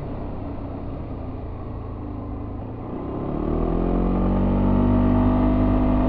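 Yamaha Tricity 300's single-cylinder scooter engine with its stock exhaust, heard on board. It runs off the throttle for about three seconds with the engine note low under road and wind noise. Then the throttle opens and the revs climb and hold steady near the end.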